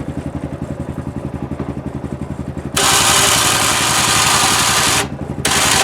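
Yamaha Rhino 660 side-by-side's single-cylinder engine idling. About three seconds in, its Warn electric winch runs for about two seconds, reeling in the new synthetic rope to lift the plow blade. It stops sharply, then runs again briefly near the end.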